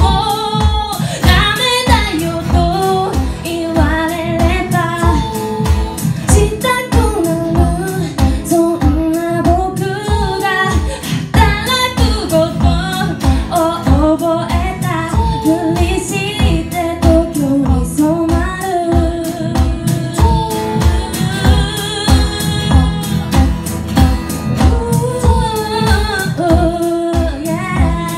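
A woman singing live while strumming an acoustic guitar in a steady rhythm.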